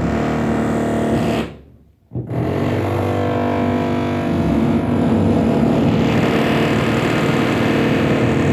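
A power tool's motor running loudly at a steady pitch during renovation work. About a second and a half in it winds down almost to silence, then starts again abruptly and keeps running.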